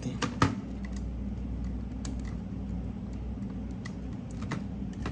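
Scattered light clicks and taps, a handful of them with two close together near the start, as a disassembled car stereo's parts and cable connectors are handled and unplugged, over a steady low hum.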